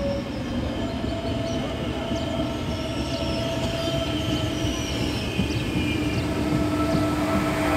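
Train running along the railway track: a steady rumble of wheels on rail with a held whining tone that grows a little louder toward the end.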